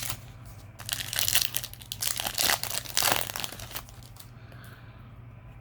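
Foil wrapper of a Yu-Gi-Oh! booster pack crinkling as it is handled and torn open, in bursts of rustling from about a second in until nearly four seconds in.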